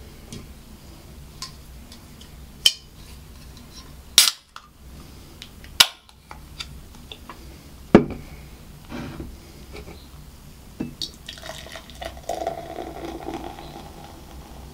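Somersby Blackberry poured from a can into a glass mug, a steady splashing and fizzing pour that starts about three-quarters of the way through. Before it come several sharp clicks and knocks as the can and glass are handled.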